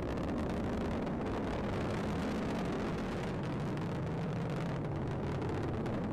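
Atlas V rocket's RD-180 first-stage engine and twin solid boosters in powered ascent, nearing max Q: a steady, deep, noisy rumble.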